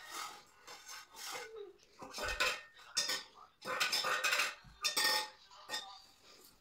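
Paper rustling and crinkling as fingers fold and pinch a small red paper shape, in several short crisp bursts, with light taps as it is set down on the craft mat a few seconds in.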